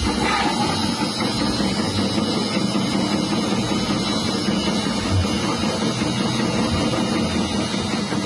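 Electric cassava slicing machine's motor running steadily, under background music with a drum beat.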